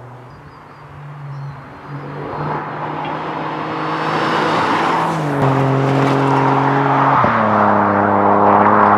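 MINI Cooper F56's 1.5-litre turbocharged three-cylinder engine through a straight-piped custom catback with a Vibrant muffler, growing louder as the car drives up and passes. The engine note drops in pitch twice, about five and seven seconds in, over tyre and road noise.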